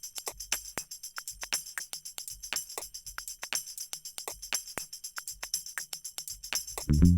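Background music in a sparse passage of quick, regular percussion strokes with no bass or guitar, before the fuller band comes back in near the end.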